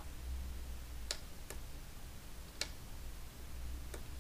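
Four sharp, separate clicks of a computer mouse, spaced unevenly over a few seconds, over a low steady hum.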